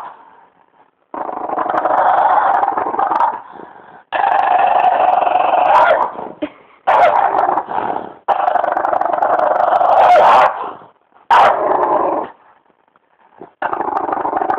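French bulldog growling in a run of about six long bouts, each one to two and a half seconds, with short breaks between.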